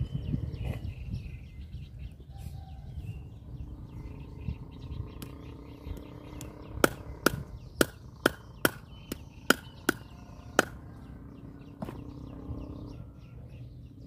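Knife chopping through a large striped catfish on a round wooden chopping board: a run of about nine sharp chops, two or three a second, beginning about halfway in, with a few lighter knocks before them.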